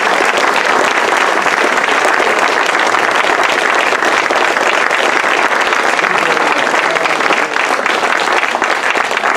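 An audience applauding, a dense steady clatter of many hands clapping that eases slightly near the end.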